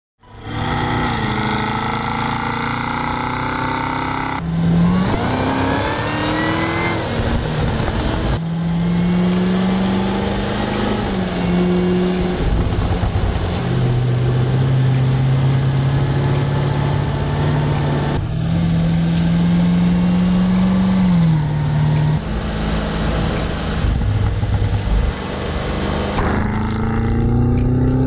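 Cadillac CT5-V Blackwing's supercharged 6.2-litre V8 accelerating and revving, its pitch climbing under throttle and holding steady between climbs, over several cut-together passes.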